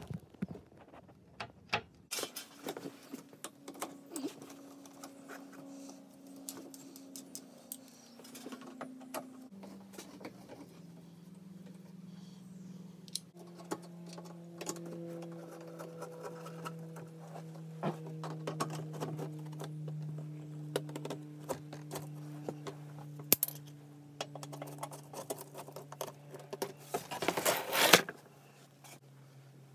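Hand tool and socket clicking and rattling against metal as the fasteners of a car's engine undertray are undone, over a faint low hum. Near the end comes a louder clatter about a second long as the undertray is handled.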